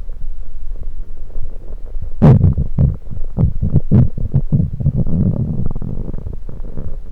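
Human stomach gurgling with gas from freshly drunk carbonated soda, recorded up close on the belly. A low rumble breaks about two seconds in into a run of quick bubbling pops, followed by a longer drawn-out gurgle.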